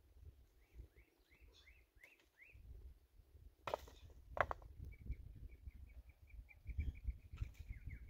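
Birds chirping: a few short rising chirps, then a quick even run of high notes, about five a second. Two sharp knocks about halfway through are the loudest sounds.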